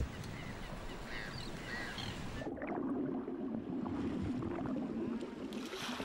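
Water sloshing and splashing as a Cape fur seal swims at the surface, more strongly from about halfway through. Faint gull calls come in the first couple of seconds.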